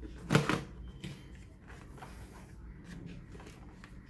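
Cardboard retail box of a CPU being opened and handled: a short loud rustle about half a second in, then quieter scattered scraping and rustling of the packaging.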